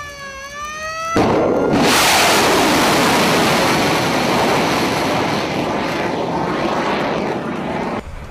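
A short tone that dips and rises, then about a second in a sudden loud rushing roar as a cruise missile's rocket booster fires it off a warship. The roar holds for some seven seconds and cuts off near the end.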